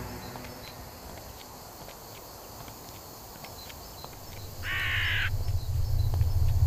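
A crow caws once, a harsh call of under a second about four and a half seconds in, over quiet forest ambience with faint ticks. A low rumble comes in with the caw and keeps going.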